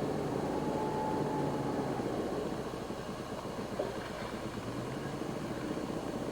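Chainsaw engine running steadily at a distance, a continuous drone.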